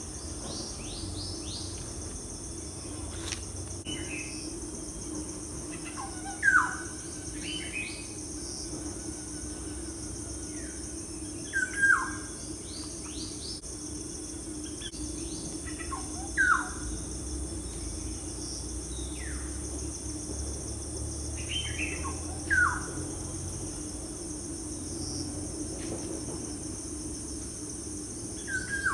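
A bird calls five times, once every five to six seconds, each call a single loud note that slurs downward. Softer, higher chirps from other birds come in between, over a steady high insect chorus.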